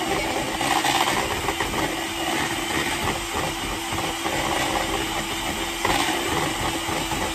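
Electric hand whisk running steadily in cake batter, beating it smooth to get the lumps out. Its steady motor tone changes about six seconds in, with a brief clatter.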